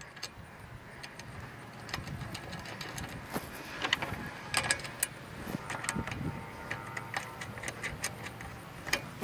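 Irregular small metallic clicks and clinks as bolts and nuts are fitted by hand into the metal mounting base of a truck bed rack upright, left loose for later adjustment.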